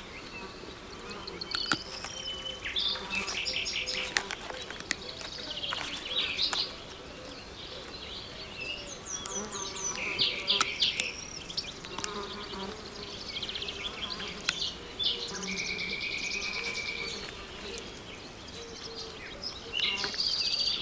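Forest ambience: songbirds chirping and trilling, one holding a steady whistle for a couple of seconds in the second half, over a faint steady insect drone. A few sharp clicks are scattered through it.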